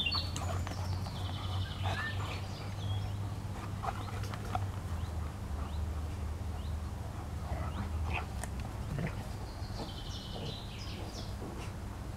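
Two Central Asian Shepherd dogs play-wrestling on grass, making scattered short sounds over a steady low hum. Birds chirp at the start and again about ten seconds in.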